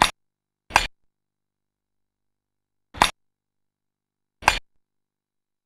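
Four sharp strikes of a staff against a striking target: two about three-quarters of a second apart, then two more about a second and a half apart, with silence between them.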